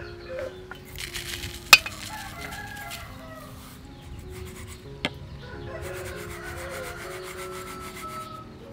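A metal spoon clinks sharply once against a metal plate about two seconds in and more faintly about five seconds in, with spells of scraping between, over soft background music.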